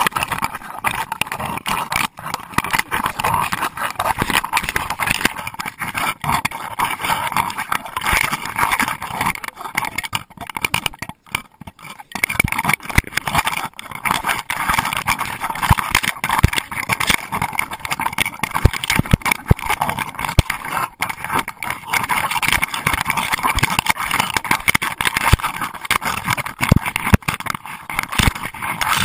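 Camera-on-a-running-dog sound: a GoPro Hero2 in its waterproof housing knocking and rattling with every stride, mixed with the dog's rapid footfalls and scuffing, a constant jumble of clicks that eases off briefly about eleven seconds in.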